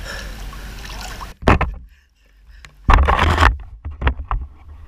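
Swimming-pool water splashing and sloshing against a camera held at the water's surface. Two loud splashes come about 1.5 and 3 seconds in, with a brief muffled, near-silent gap between them.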